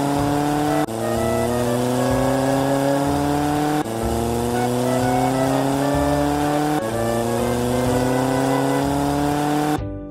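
Dubbed vehicle engine sound effect: an engine note that climbs in pitch for about three seconds, drops back and climbs again, looping three times, then cuts off abruptly near the end.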